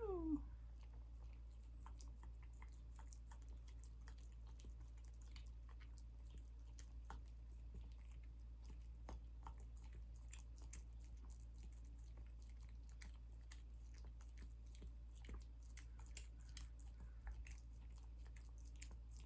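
Miniature dachshund licking and smacking at honey: faint, irregular wet clicks and smacks over a low steady hum. A short falling voice-like whine tails off right at the start.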